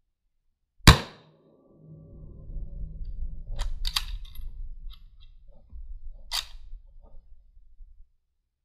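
A single shot from a 1944 Lee-Enfield No. 4 Mk I .303 British rifle about a second in, then the bolt being worked: two sharp metallic clicks about two and a half seconds later and another a couple of seconds after that, over a low rumble.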